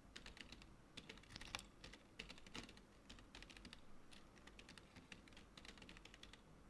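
Faint, irregular keystrokes on a computer keyboard: text being typed.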